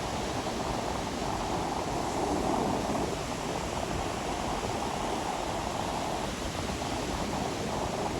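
Ocean waves washing onto a beach: a steady rushing surf that swells slightly about two to three seconds in.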